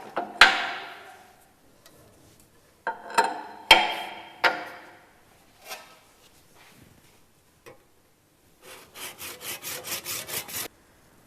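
Several sharp metallic knocks and clatters that ring briefly, then near the end about two seconds of quick handsaw strokes, roughly five a second, cutting through plaster.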